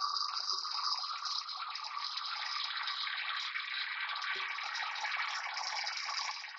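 Iskra angle grinder running steadily with its abrasive disc grinding steel held in a vise, an even hissing grind that stops just at the end.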